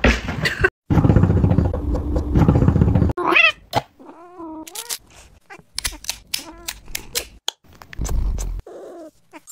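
About two seconds of loud rustling, scuffling noise, followed by a string of short cat meows, some high and wavering.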